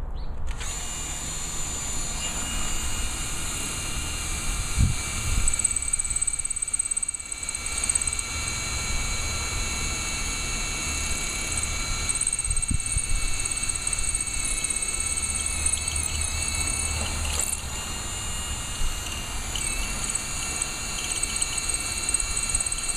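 Power drill running steadily, switching on about half a second in and holding a high whine throughout, with wind rumbling on the microphone.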